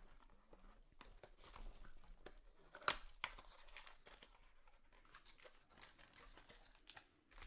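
Faint tearing and crinkling of a trading-card pack wrapper being opened and handled, with one sharper click about three seconds in.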